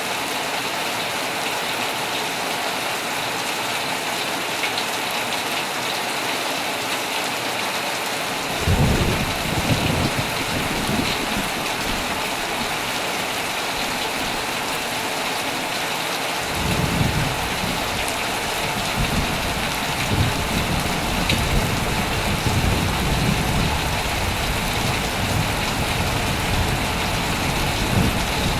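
Heavy rain pattering steadily on a tent. A sudden thunderclap breaks in about a third of the way through and rumbles for a few seconds. A longer rolling peal of thunder begins a little past halfway and goes on to the end.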